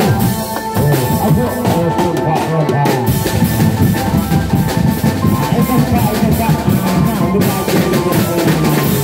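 Live drum band playing a fast, driving beat on snare and bass drums, loud and continuous.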